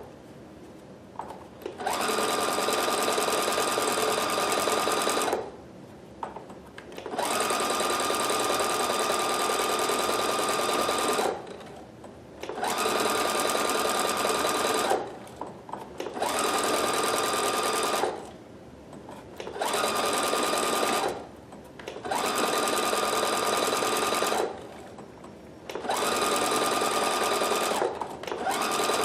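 Husqvarna Viking Platinum Plus sewing machine running in repeated bursts of a few seconds with short stops between, with a steady whine. It is sewing forward and then in reverse, back and forth over a tear to mend it.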